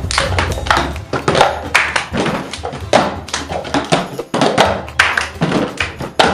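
Cups knocked, slapped and passed on a table in the rhythm of the cup game, mixed with hand claps: a quick, steady run of sharp taps and thunks.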